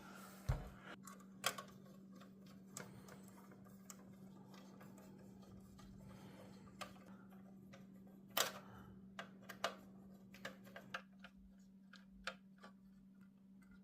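Faint, irregular clicks and light taps of small screws being driven by hand into the side of a car radio display unit, over a steady low hum.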